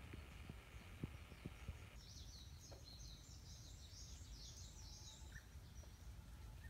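Faint outdoor ambience with a steady low rumble; about two seconds in, a small songbird sings a rapid run of high chirps lasting about three and a half seconds.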